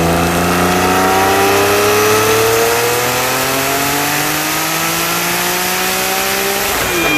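Porsche 997 GT2's twin-turbocharged flat-six at full throttle on a chassis dyno: the revs climb steadily through one long pull of about seven seconds, then fall away as the throttle is lifted near the end.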